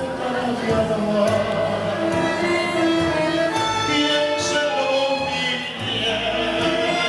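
Live tango sextet of two bandoneons, piano, violins and double bass accompanying a male singer who sings into a microphone.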